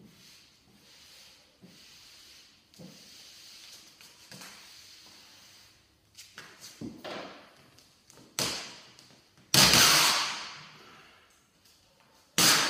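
Air-release vinyl stripe and its backing paper being handled on a car bonnet. First come quiet rubbing strokes, then sudden loud rustling rasps as the sheet is lifted and pulled, the loudest just before ten seconds in and another near the end.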